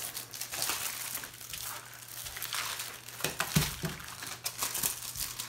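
Clear plastic film on a diamond painting canvas crinkling and crackling as it is smoothed and handled by hand, with a soft thump about three and a half seconds in.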